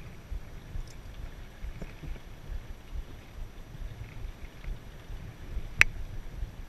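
Water washing against the hull of an Enterprise sailing dinghy under way, with wind rumbling on the microphone in uneven gusts. A single sharp knock comes near the end.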